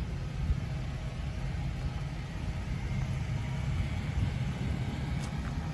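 Low, irregular rumble of wind buffeting the microphone.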